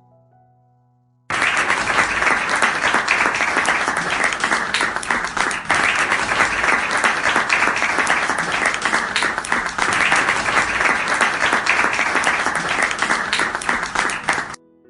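Applause: many hands clapping in a dense, even patter that starts suddenly about a second in and cuts off abruptly near the end.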